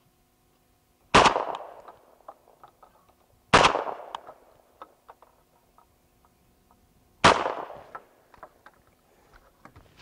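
Three shotgun shots, the second about two and a half seconds after the first and the third nearly four seconds later, each trailing off quickly: a sporting clays triple in which each shot's report launches the next clay target.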